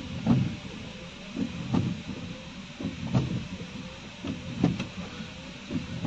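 Car driving over a badly broken road: the body and suspension thud irregularly, about every half second, over a steady rumble of engine and tyre noise.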